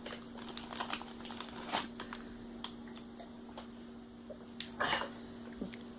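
Small scattered clicks and crunches of someone eating a cream-filled biscuit, with a couple of brief louder rustles, over a steady low hum.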